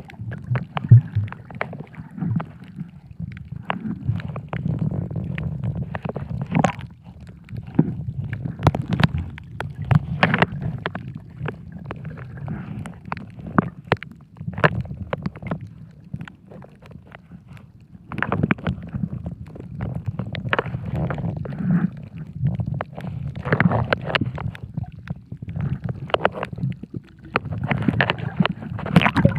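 Muffled underwater sound picked up by a camera: a low rumbling with gurgling, broken by many sharp scattered clicks and crackles, and quieter for a few seconds past the middle.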